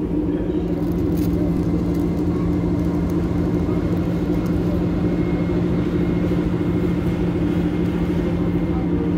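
SM42 diesel-electric shunting locomotive running past at low speed, its diesel engine giving a steady low drone with an even rumble underneath.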